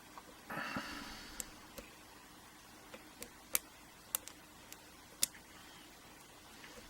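Lock pick and tension wrench working the telescoping pins of a Mul-T-Lock Classic euro cylinder: faint, scattered metallic ticks as pins are probed and set, the two loudest about three and a half and five seconds in. A short rustle of hands comes about half a second in.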